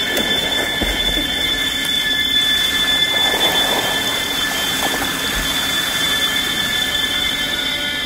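Water splashing and sloshing as a swimmer moves through the pool right at the microphone, over a steady high-pitched whine that runs throughout.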